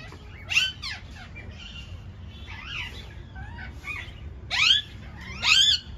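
Parakeets calling with repeated harsh screeches. There are two loud calls near the start and fainter ones in the middle, then a loud run of calls in the last second and a half.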